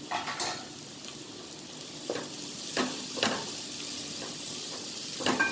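Chopped shallots and dried red chillies frying and sizzling in a pan, with several scraping knocks of a wooden spatula against the pan as they are stirred.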